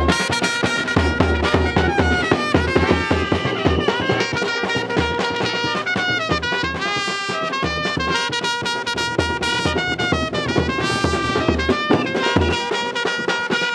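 Live brass band playing: trumpets sound held notes and sliding phrases over a bass drum beat.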